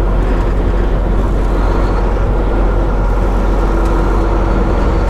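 Semi truck cab at highway cruising speed: engine and road noise running steadily with a low hum.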